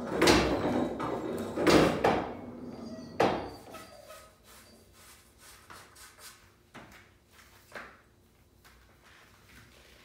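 Heavy clunks and rumbling of pool balls rolling through a coin-operated bar table's internal ball-return track, loudest in the first few seconds. This is followed by a few faint taps.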